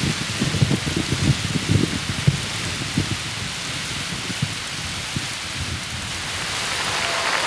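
Recorded rain-and-thunder soundtrack: a steady hiss of rain with irregular low rumbles of thunder that die away about five seconds in.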